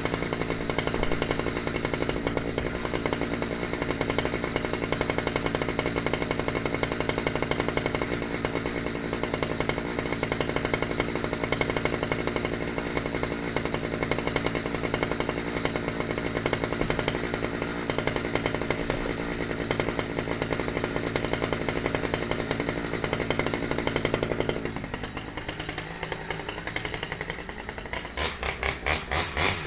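Chainsaw engine running steadily at high revs, then dropping in pitch to a lower, quieter run about 25 seconds in; near the end it revs in quick, repeated surges.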